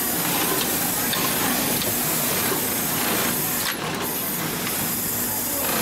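HIGHTEX 7204-370DP heavy-duty post-bed double-needle lockstitch sewing machine running, stitching thick thread through leather: a steady mechanical whirr with faint regular clicks over a constant hiss.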